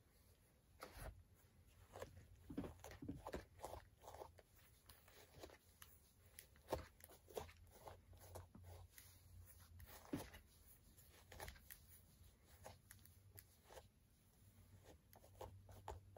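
Faint, irregular crisp strokes of a hairbrush pulled through a doll's hair.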